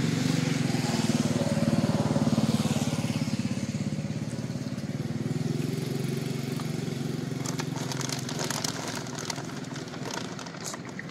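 A motorbike engine passing by, loudest about two seconds in and then slowly fading. Near the end, a plastic snack bag crinkles a few times.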